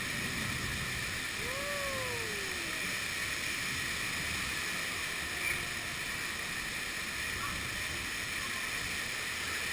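Steady rushing noise of air over the camera as the chain-swing ride spins, mixed with the splashing spray of the fountain below. A brief rising-then-falling tone sounds about a second and a half in.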